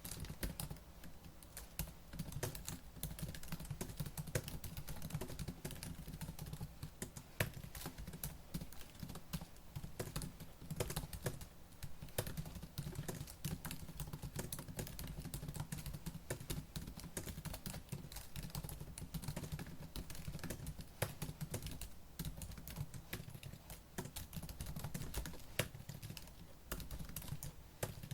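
Fast, continuous typing on a laptop keyboard: dense rapid key clicks with an occasional louder keystroke.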